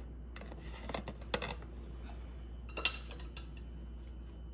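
A few light clicks and taps of a kitchen utensil against a ceramic plate as burger patties are set onto their buns, the sharpest about three seconds in.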